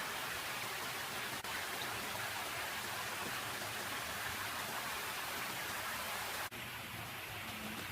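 A steady, even hiss spread from low to high pitches, dropping out briefly about a second and a half in and again near the end.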